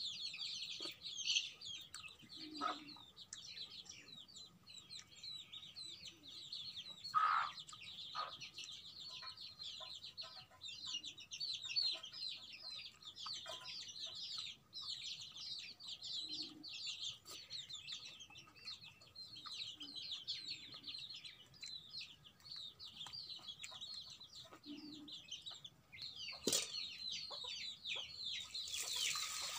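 A flock of chicks peeping without pause in rapid high chirps, with a hen's low cluck now and then and a few brief knocks. Near the end, water splashes from a mug into a metal pot.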